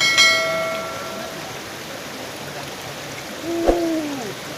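Fast river water rushing steadily through the slats of a bamboo fish trap. Just after the start a bell-like chime rings out and fades over about a second, and near the end a short voice sound comes with a sharp knock.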